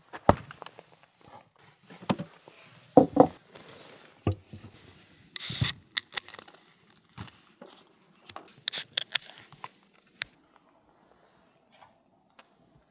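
Camp dinner handling noises: scattered knocks, clicks and scrapes, with a short loud hiss about five and a half seconds in and another cluster of hissing and clicks around nine seconds in.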